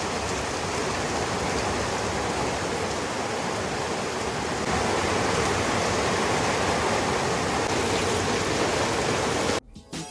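Steady rush of flowing water, a little louder from about halfway through, then cut off abruptly near the end.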